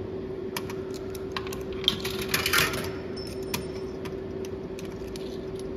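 Coins being fed into a bar video slot machine: a series of sharp clicks and a short clatter of coins running through the coin mechanism about two seconds in, over a steady hum.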